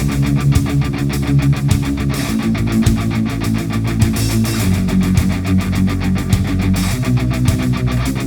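Background music: heavy rock with distorted electric guitar over a fast, steady beat.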